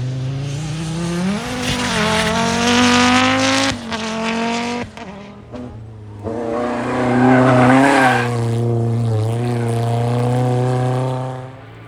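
Historic rally car engine revving hard under acceleration, its pitch climbing and holding at high revs. It cuts off briefly twice, then runs at high revs again before fading away near the end.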